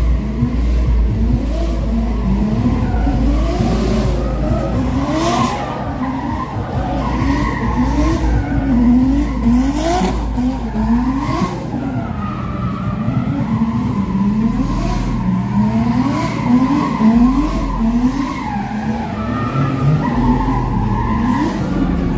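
Car engines revving up and falling back again and again, about once a second, with tyres skidding and squealing as cars drift.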